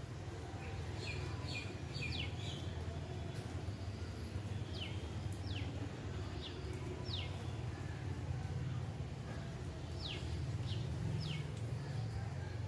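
A bird giving short, sharp calls that slide steeply down in pitch, about ten of them in three small bursts, over a steady low rumble and hiss of monsoon wind and rain.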